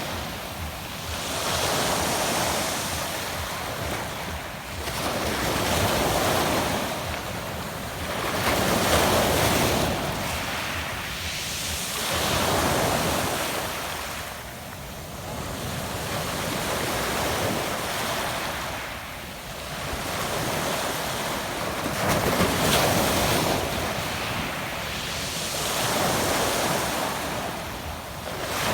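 Small sea waves breaking and washing up a pebble beach, the surf swelling and fading about every three to four seconds.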